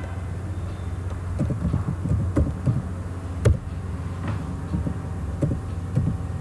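Computer keyboard keys clicking at an uneven pace during typing, about a dozen keystrokes, the loudest about three and a half seconds in, over a steady low hum.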